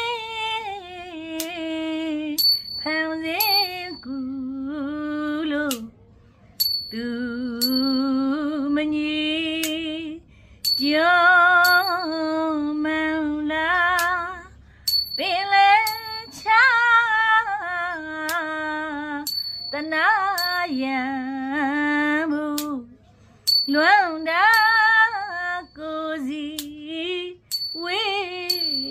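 A woman sings a Burmese classical Maha Gita song in long, wavering held notes, unaccompanied by any melody instrument. A small bell-like cymbal, the kind that keeps time in this music, rings out with short bright strikes again and again.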